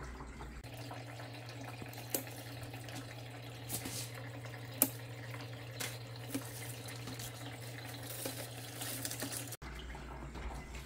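Hydroponic garden's water pump humming steadily with water trickling, broken by a few sharp clicks over several seconds. The hum stops abruptly near the end.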